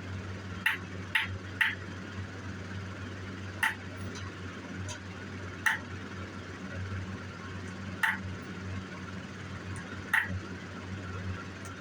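Hammer striking a steel jewelry stamp into sheet metal: sharp metallic taps, three in quick succession about a second in, then single taps roughly every two seconds, over a steady low hum.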